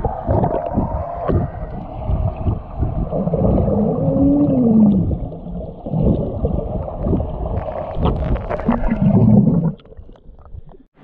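Muffled underwater water noise picked up by an action camera below the surface of a swimming pool: rushing and bubbling, with a tone that rises and falls about four seconds in. It drops away sharply near the end, as the camera comes up at the surface.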